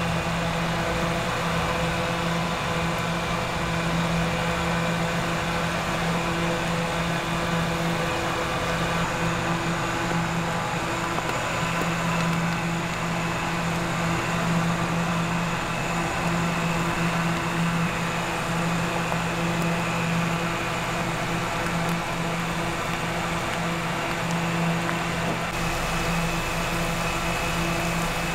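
A steady machine hum from a continuously running motor, with several held tones that do not change in pitch, over a background hiss.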